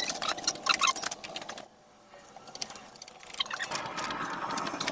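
Hand tools and metal parts clinking and clicking in quick, irregular strikes during reassembly of engine parts. The clinks break off about a second and a half in, and after a short pause a faint steady hum comes in with more clinks.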